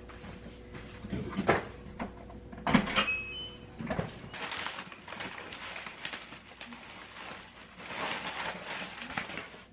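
Front door being opened: clicks and knocks of the handle and latch, with three short rising electronic beeps from a digital door lock about three seconds in. From about four and a half seconds on, paper delivery bags rustle and crinkle as they are pulled open.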